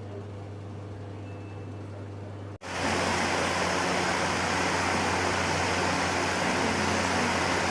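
Turbo fan running: a steady loud rush of air over a low motor hum, cutting in abruptly about two and a half seconds in after a quieter steady hum.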